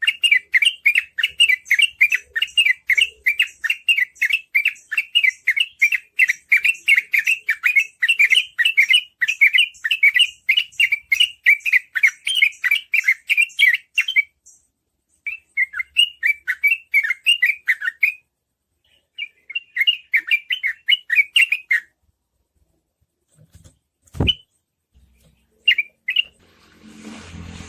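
Yellow-vented bulbul singing its rapid 'ropel' song, a fast string of short chirping notes about four to five a second that breaks off after about fourteen seconds and then comes in two shorter runs. Near the end there is a single sharp click and a brief rush of noise.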